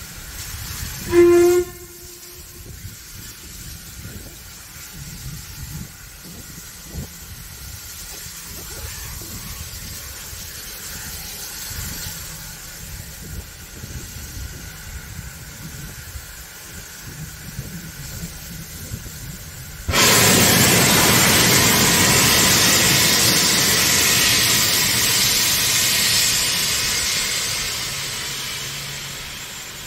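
Ivatt Class 2MT 2-6-2 tank steam locomotive sounds a short toot on its whistle about a second in, then comes on with a low rumble. About twenty seconds in, a loud hiss of steam from its open cylinder drain cocks starts suddenly, holds for several seconds, then fades away.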